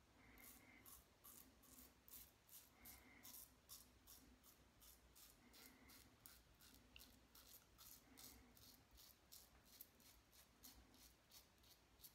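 Braveheart stainless steel safety razor with a Gillette Super Platinum blade scraping through lathered stubble on the chin, in short quick strokes about three to four a second. The rasping is faint.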